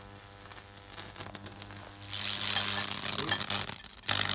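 Microwave oven transformer humming steadily while its high voltage burns a fractal path through wet wood, with faint crackling. About two seconds in, a loud hissing, crackling electric arc flares for about a second and a half, then a few sharp snaps follow.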